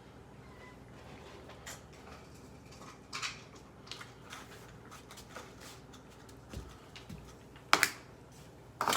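Food bowls being handled: scattered light knocks and clicks, with two sharp clacks near the end.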